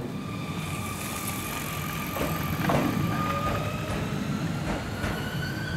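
Sotetsu navy-blue electric train at a station platform: a steady low rumble with a thin high whine that slowly rises in pitch, and a few clicks near the middle.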